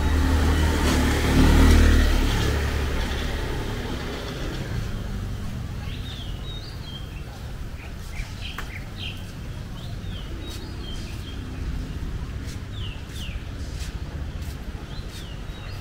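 A motorbike engine passes close in the first couple of seconds and fades away. From about six seconds in, birds chirp again and again in short falling calls over a low hum of distant traffic.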